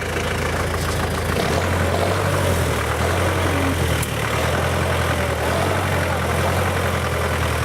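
Off-road vehicle's engine running steadily at low revs, with a brief dip twice, while the vehicle is worked at getting out of a stuck spot.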